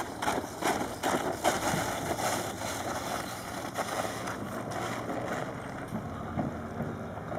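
Wind rushing on the microphone over water noise around a small sailboat, with irregular gusty knocks in the first few seconds that settle into a steadier, softer rush.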